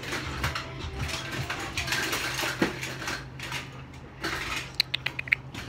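A hand rubbing and petting a dog's fur close to the microphone, then the dog's metal collar tags clinking several times in quick succession near the end.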